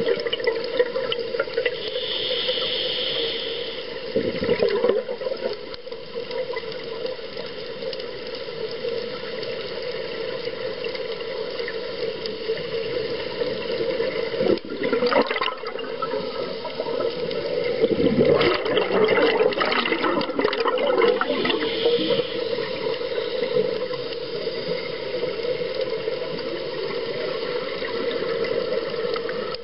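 Underwater sound picked up by a camera in a dive housing: a steady hum, with the rushing bubble noise of a scuba diver's exhalations through the regulator coming and going, the longest lasting about three seconds past the middle.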